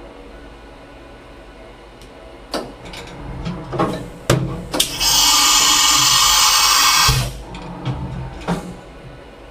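Fadal vertical machining center's automatic tool change. Clunks and knocks as the umbrella carousel moves in under the spindle and takes back the tool holder, then a loud hiss of compressed air lasting about two seconds from the pneumatic drawbar releasing the tool, then a few more clunks as the carousel indexes and moves away.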